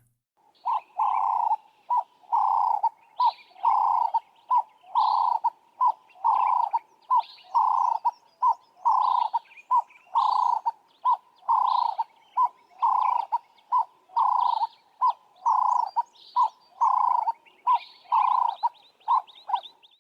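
Ring-necked dove (Cape turtle dove) calling: a cooing phrase repeated over and over, short notes alternating with longer ones at about two notes a second. Fainter, higher chirps sound above it, with a quick run of them near the end.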